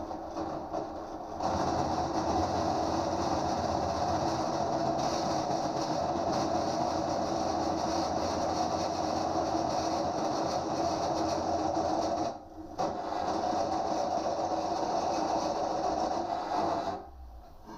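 Pillar drill running with a 17 mm bit cutting into steel, a steady grinding drone that drops out briefly about twelve seconds in, then resumes and stops near the end. The bit is cutting dry, before cutting oil is applied.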